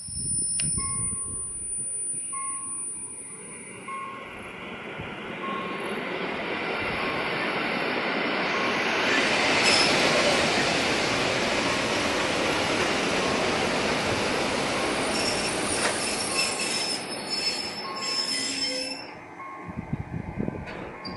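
Koleje Mazowieckie electric multiple unit pulling into a stop: its running noise builds to a peak about halfway through and stays loud as the cars roll past. A thin high brake and wheel squeal joins in later, and the sound falls away about a second before the end as the train comes to a halt.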